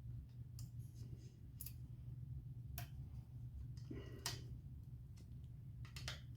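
A handful of faint, scattered metallic clicks as an Allen wrench works the cable clamp bolt on a bicycle derailleur, tightening it onto the new shifter cable. A low steady hum runs underneath.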